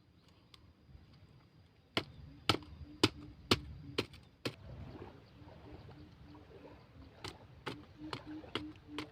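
Firewood being chopped: a run of six sharp strikes about half a second apart, then a few more strikes near the end.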